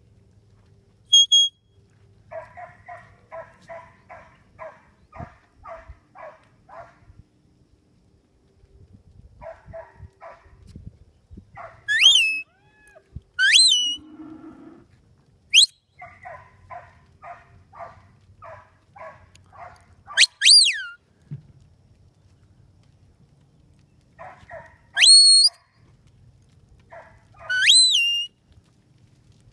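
Handler's herding whistle commands to a working stock dog: about seven sharp whistles, some rising and some falling in pitch, which are the loudest sounds. Between them come runs of dog barks, about two a second.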